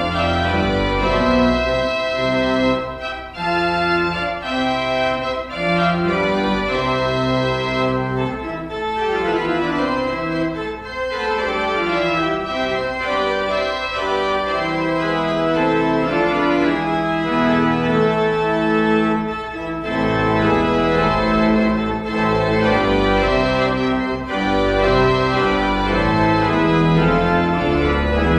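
Church organ playing the postlude after the dismissal: full held chords over low bass notes, the harmony changing every second or so, with a descending run of notes about a third of the way in.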